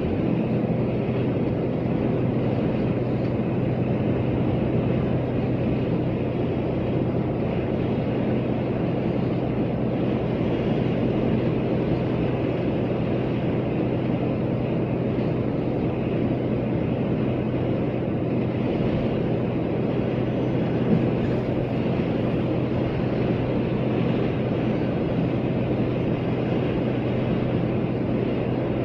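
Steady engine hum and road noise of a camper van cruising at a constant speed on a motorway. A single brief knock about 21 seconds in.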